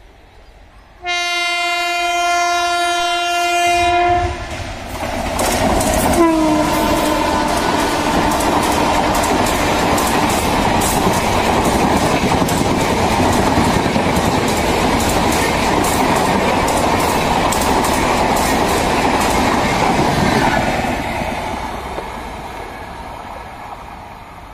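An Indian Railways electric locomotive sounds a long multi-note horn blast about a second in, then a short second note that drops in pitch as it passes. A high-speed express rake of LHB chair-car coaches follows, with a loud rush and a rhythmic clickety-clack of wheels over rail joints that fades away near the end.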